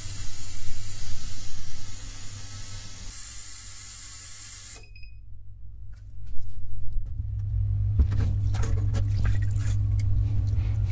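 Ultrasonic cleaning bath running with a steady hiss over a low hum, cleaning carburetor parts in warm cleaning solution. About five seconds in the hiss cuts off suddenly as the bath stops. Scattered clicks and clinks follow, then a louder low hum.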